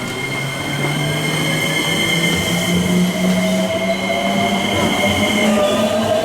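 Electric train's inverter and traction motors whining, the pitch climbing steadily as it pulls away and picks up speed. A set of high steady tones cuts off abruptly near the end as the motor whine keeps rising.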